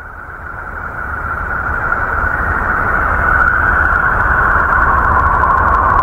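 Sound presented as the sound of the planet Uranus: a steady hissing drone centred in the middle register over a low rumble. It fades in and grows louder over the first few seconds, then holds, sinking slightly in pitch.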